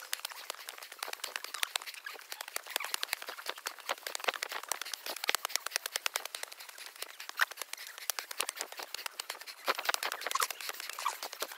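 Footsteps crunching on a leaf-strewn, stony trail during a steep uphill climb: a dense, irregular crackle of dry leaves and grit underfoot.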